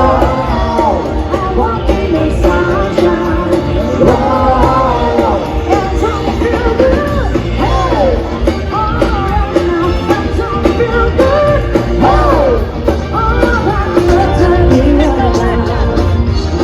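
Music with a sung vocal over a full band, loud and steady.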